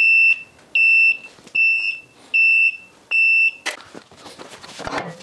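Two-post car lift's lowering warning beeper: a high, steady beep repeated about every 0.8 s, five times, the signal that the lift is coming down. The beeping stops about three and a half seconds in, followed by light clicks and knocks.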